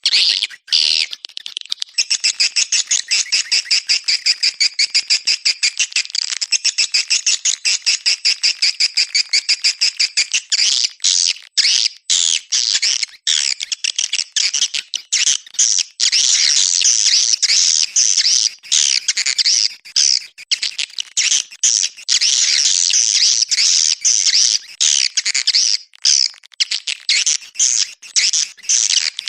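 Swiftlet lure call recording: swiftlets twittering in dense, rapid trains of chirps, with brief breaks now and then. This is the kind of call swiftlet farmers play to draw the birds into a swiftlet house.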